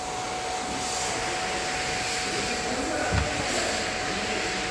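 Steady noise inside the cabin of a running car in reverse, with a continuous high warning tone from the rear parking sensors, which show an obstacle close behind. A dull thump about three seconds in.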